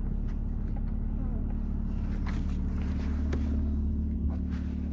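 Car engine idling steadily with a low hum, warming up in the cold, with a few light clicks and knocks over it.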